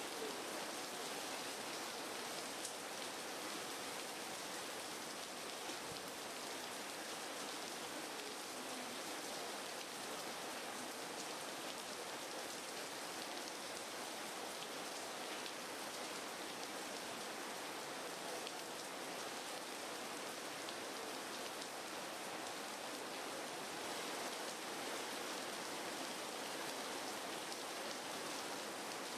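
A steady, even hiss like rain falling, with no voices or animal calls.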